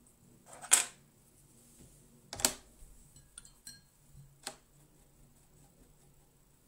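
A few sharp clicks and knocks of a paintbrush and hand against a metal watercolour palette tin while paint is picked up, the loudest about two and a half seconds in, with faint small ticks between them.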